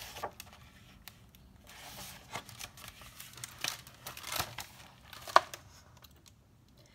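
Hardcover picture book being handled and its pages turned: paper rustling and crinkling with scattered light clicks, the sharpest about five seconds in.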